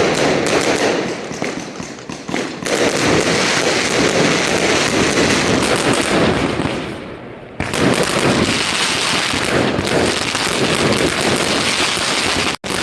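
Fireworks display: a dense, continuous barrage of bangs and crackling. It fades for a moment about six seconds in, then comes back suddenly at full strength.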